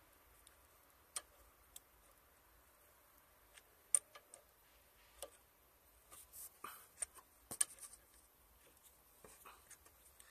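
Faint, scattered clicks and light taps at irregular intervals, a few sharper than the rest, as of hand tools and small parts being handled while working on a car engine.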